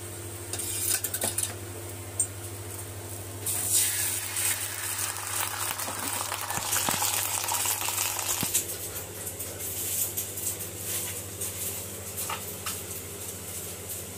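Egg omelette batter frying in oil on a hot iron tawa, sizzling most strongly for about five seconds in the middle, with a few sharp metal clinks of a ladle against the pan.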